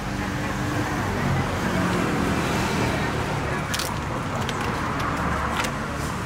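Road traffic running by, with a steady engine hum, and a couple of sharp clicks about four and five and a half seconds in.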